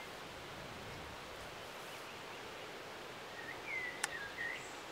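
Faint outdoor ambience of a breeze rustling leaves, a steady soft hiss. Near the end a bird chirps several times, with one sharp click among the chirps.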